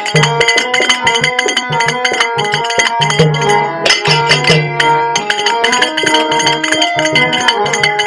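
Bhajan music, an instrumental passage: drums playing a quick, dense rhythm under steady held melody notes.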